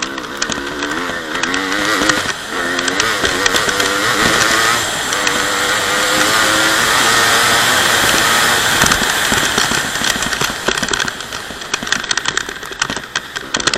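Honda CR250 single-cylinder two-stroke dirt bike engine revving up and down as it is ridden. It is held louder and steadier for several seconds in the middle, then runs choppily on and off the throttle near the end.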